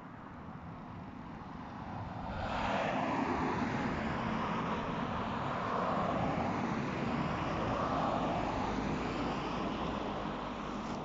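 A passing vehicle: a steady rush of noise that swells about two seconds in, holds for several seconds with a slow wavering, and fades a little near the end.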